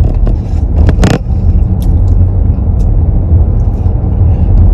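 Road noise inside a moving car's cabin: a steady low rumble, with a short burst of noise about a second in.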